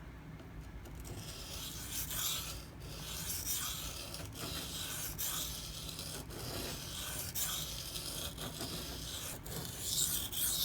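Maxamet steel blade of a Spyderco PM2 knife being stroked by hand across a 240-grit silicon carbide sharpening stone. It makes a gritty scraping in repeated strokes, roughly one a second, starting about a second and a half in.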